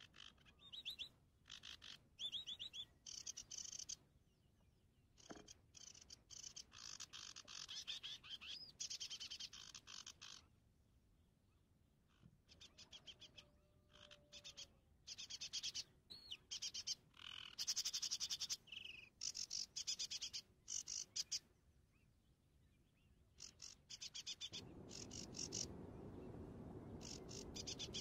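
Faint wild animal calls: bouts of rapid, high-pitched pulsed trills that repeat with short gaps between them. A steady rushing noise joins them a few seconds before the end.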